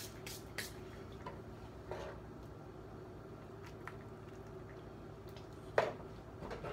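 Quiet kitchen handling: a few faint, scattered clicks and taps, with one sharper knock near the end.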